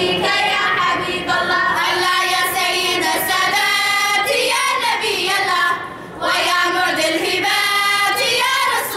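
A group of young girls singing a nasheed together, with a short pause for breath about six seconds in.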